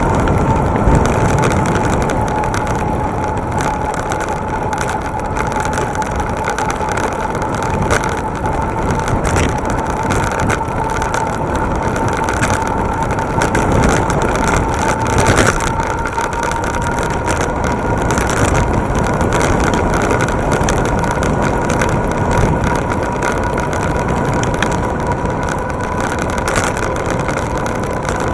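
Wind and road noise from an electric bike ridden at speed on a paved road, with a thin steady high whine throughout and a few brief knocks from bumps.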